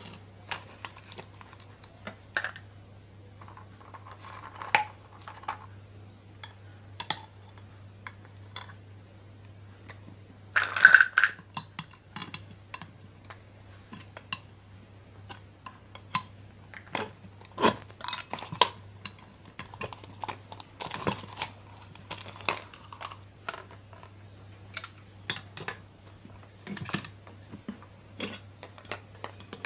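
Irregular metal clicks and taps of a screwdriver prying around the edge of a ceiling fan's metal housing to work its two halves apart, with a louder clatter about 11 seconds in. A faint steady low hum runs underneath.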